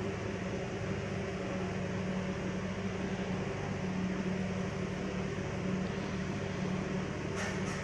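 Steady hum of a refrigeration unit running under a frosted rolled-ice-cream cold plate, with a low steady tone. A few short ticks near the end.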